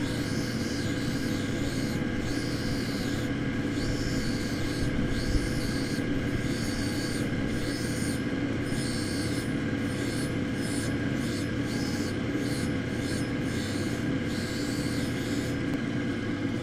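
A fused dichroic glass cabochon on a dop stick being ground against a wet diamond wheel, shaping the edge of the oval: a steady machine hum under a rasping grind that swells and fades about once a second. The grinding stops shortly before the end as the stone is lifted off the wheel.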